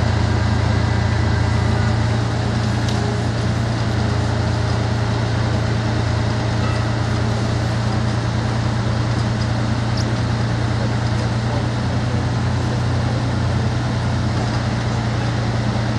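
Heavy machinery running with a steady low drone, easing slightly about two seconds in.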